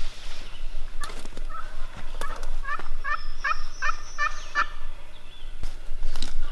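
Wild turkey–style yelping: a series of about ten evenly spaced, clear calls at roughly three a second, lasting about three and a half seconds, with a few sharp clicks before and after.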